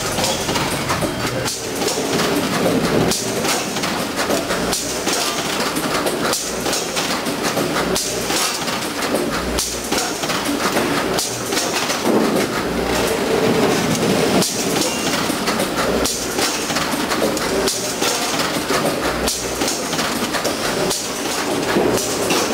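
Produce packing line running: Newtec weigher and Ag-Pak Tiltousel rotary bagger, with small green fruit dropping through the chute into mesh bags. A steady clatter with frequent clicks and knocks and a dull thump every few seconds.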